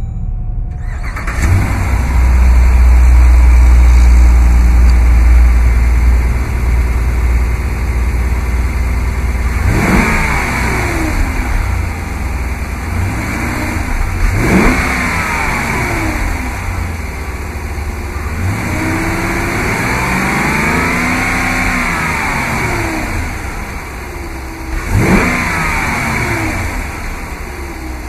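Dodge 5.7-litre HEMI V8 starting about a second in and running loudest in its first few seconds, then idling and revved several times: quick revs about ten and fourteen seconds in, a longer series of rises and falls around twenty seconds, and another quick rev near the end.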